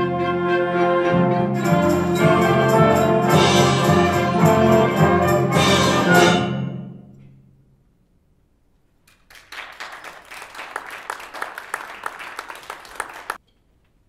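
Junior concert band of wind, brass and percussion finishing a piece loud and full, the last chord dying away about seven seconds in. After a short silence, audience applause starts, quieter than the band, and cuts off abruptly near the end.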